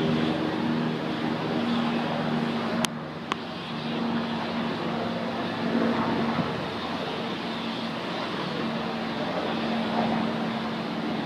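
Steady outdoor city noise, traffic-like, with a low steady drone under it; two sharp clicks about three seconds in.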